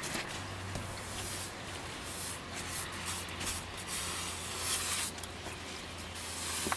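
Mittened hands scraping and brushing light snow off a porch swing seat and a glass tabletop, in short swishes.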